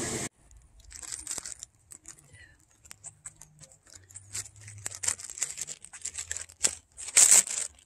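Light, irregular crinkling and rustling, with a louder burst about seven seconds in.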